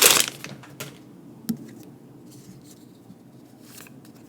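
Pokémon trading cards being handled: a brief sliding swish of a card right at the start, then a few faint taps and clicks as the cards are shifted in the hands.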